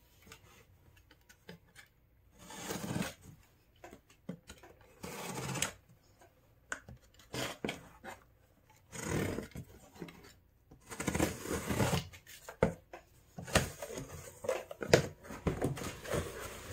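A utility knife slicing through packing tape on a cardboard box in several separate strokes of about a second each. In the last few seconds come denser rustling, scraping and sharp clicks as the cardboard flaps are pulled open.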